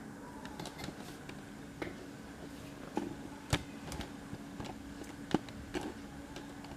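Scattered light clicks and taps of a laptop and its parts being handled on a work surface, the strongest about three and a half seconds in and again past five seconds, over a faint steady hum.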